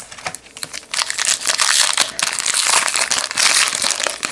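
Foil wrapper of a Topps Fire baseball card pack crinkling and crackling as it is pulled from the box and torn open by hand.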